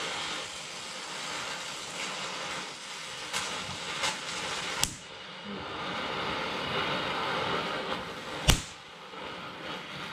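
Gas welding torch flame hissing steadily against the steel frame. A few sharp pops come through, the loudest about eight and a half seconds in, as rust on the metal spits under the flame.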